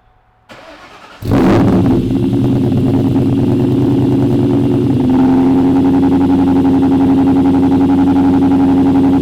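A 2003 Ford SVT Cobra's supercharged 4.6-litre DOHC V8 cranks briefly, catches just over a second in with a rev flare, then settles into idle through a Borla Stinger exhaust on its first start with that exhaust. The idle note shifts about five seconds in and then holds steady.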